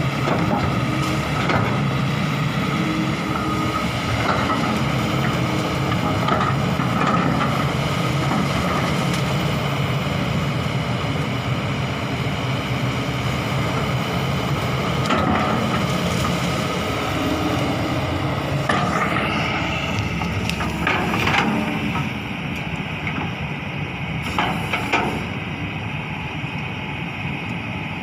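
Kobelco SK200 excavator's diesel engine running steadily, with several sharp clanks and knocks, a rising whine about two thirds of the way through, and the level easing slightly near the end.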